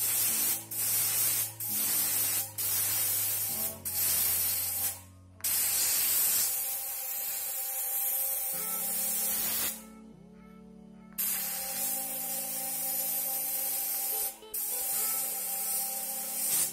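Compressed air hissing from an air blow gun as it blasts dust out of a paper-media air filter cartridge, in short bursts at first and then longer blasts, with a pause of about a second around ten seconds in. Faint background music with held notes underneath.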